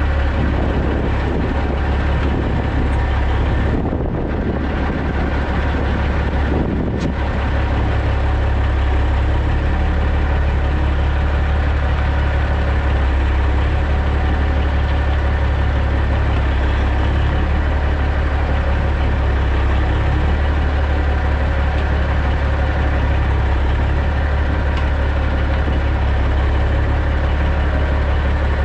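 Semi truck's CAT C15 diesel engine running steadily at low speed with a deep, even drone as the rig backs up. There is a slight dip about four seconds in and a short click near seven seconds.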